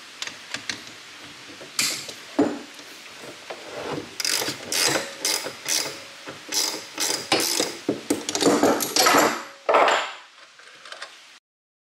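Ratcheting box-end wrench clicking in repeated bursts of strokes as it loosens the 15 mm nut on top of a factory strut's shaft. The clicking cuts off abruptly near the end.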